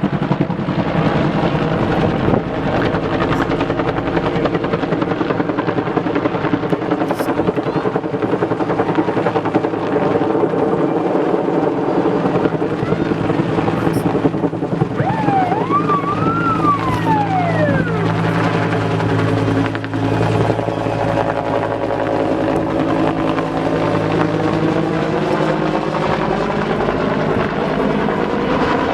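Fire department helicopter running steadily overhead with a loud, continuous rotor and engine sound. A brief whistle-like tone rises and falls about halfway through. Near the end the pitch shifts slightly as the helicopter moves.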